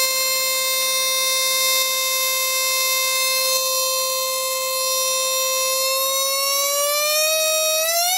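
A mini half-bridge solid-state Tesla coil's spark discharge sounding as a loud, steady buzzing note at the interrupter's pulse rate. In the last couple of seconds the note rises in pitch as the pulse rate is turned up.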